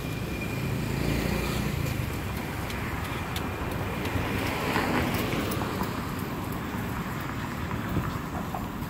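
Road traffic passing on the street beside the path: a steady run of vehicle noise with a low rumble early on, swelling as a vehicle goes by about halfway through.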